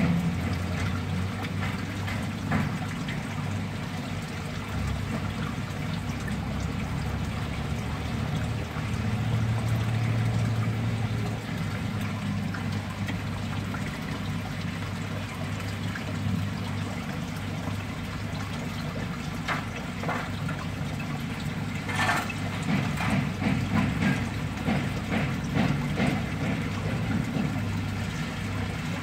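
Steady running and trickling water in a crab fattening tank system, with a low hum under it and a few faint clicks about 20 seconds in.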